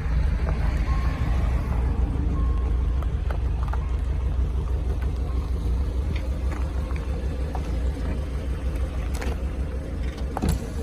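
Renault Kangoo running, a steady low rumble with scattered light clicks and ticks, recorded as the abnormal noise (異音) the owner is checking.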